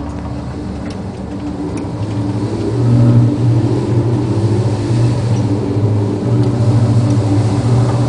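Low steady drone aboard a ship in a gale at sea, over a rush of wind and sea noise; the drone swells louder about three seconds in and holds.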